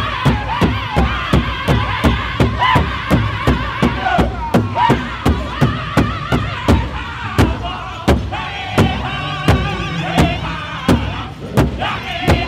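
Powwow drum group singing in high voices over a steady unison beat on a large shared drum struck with sticks, about three beats a second.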